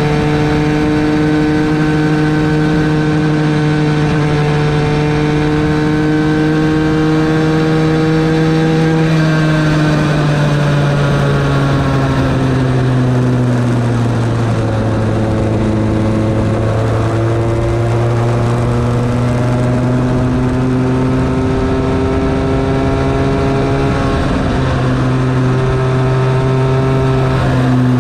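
Bambino kart's small two-stroke engine heard from onboard, running at a steady high pitch. About nine seconds in the note falls as the kart slows, bottoms out a few seconds later, then climbs back and holds steady, with a brief dip near the end.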